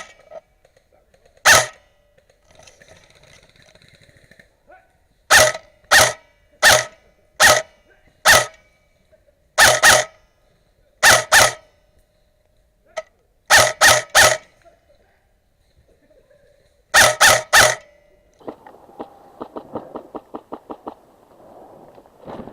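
A dog barking loudly and repeatedly, in single barks and quick runs of two or three. Near the end a quieter run of quick, evenly spaced rattling ticks follows for about two seconds.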